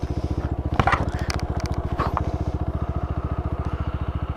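Motorcycle engine running at low, steady revs with an even, rapid pulsing beat. A few short clicks and clatters come about a second in and again around two seconds.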